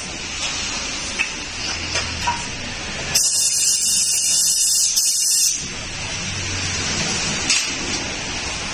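A burst of compressed air hissing for about two seconds in the middle, over steady workshop noise.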